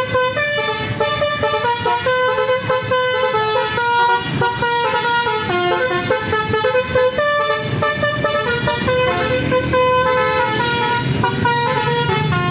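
Telolet basuri musical bus horn playing a loud tune, stepping quickly from note to note and stopping near the end.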